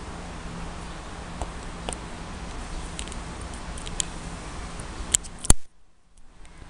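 Steady whir of computer fans with a few light clicks. A sharp click a little over five seconds in, then the sound cuts out for about a second before the whir returns.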